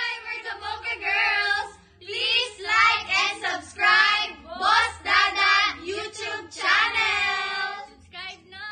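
A group of women singing together in high voices, in short phrases with a brief break about two seconds in.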